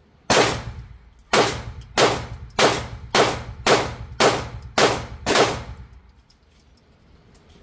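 Nine shots from a PSA Dagger 9mm pistol: one, then after a short pause eight more fired in quick succession, about two a second. This is test fire of the pistol with its repaired red dot mount.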